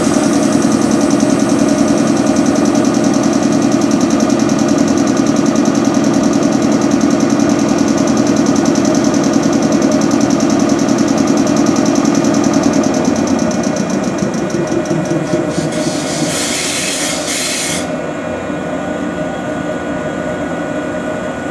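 MH80-C1000 electric air compressor under a 113 series train car running steadily with a fast, even piston beat, charging the brake air supply. About two-thirds through it slows and quietens, and a short hiss of air follows a few seconds later.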